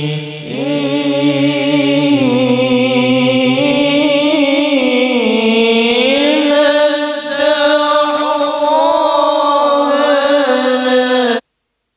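Islamic devotional chanting through a sound system being checked: a voice holds long, ornamented notes that waver and glide in pitch. It cuts off suddenly just before the end.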